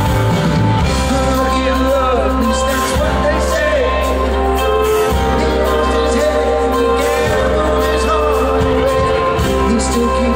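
Live soft-rock band playing with lead and harmony vocals over electric and acoustic guitars, bass, drums and keyboards, heard from the audience.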